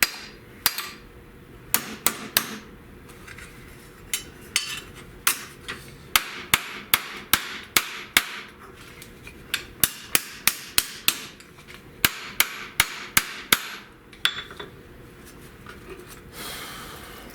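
A hammer striking a sheet-metal floor patch panel to form ridges into it. The blows ring and come in runs of a few to about a dozen, roughly two or three a second, with short pauses between runs. A brief scraping noise comes near the end.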